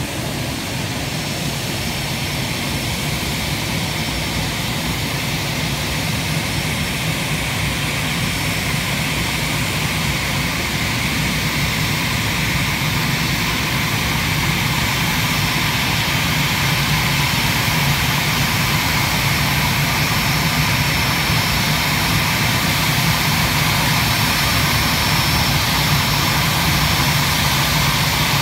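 Airbus A319ceo's twin jet engines running at taxi power as the airliner rolls toward the gate, a steady rumble with a thin high whine, slowly growing louder as it comes closer.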